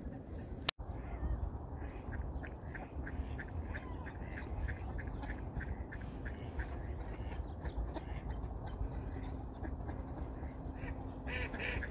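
Mallard ducks quacking: a run of short, quick calls, several a second, louder near the end. A single sharp click comes just under a second in, over a low wind rumble.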